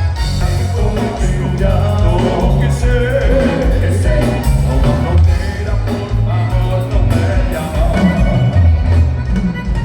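Live gaúcho dance band playing, with bass, a steady dance beat and a singer.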